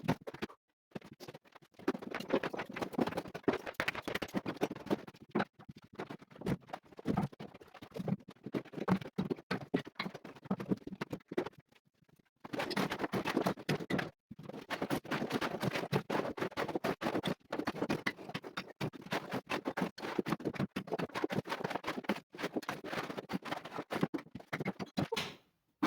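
Irregular scratching and scraping with small clicks, typical of old cement render being scraped and chipped off a stone wall by hand. It pauses briefly about a second in and twice near the middle.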